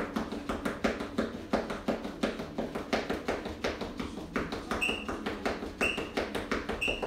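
Rapid patter of feet running in place on a floor during a fast-feet drill, several quick steps a second. Near the end come three short high beeps about a second apart, a workout timer counting down the end of the interval.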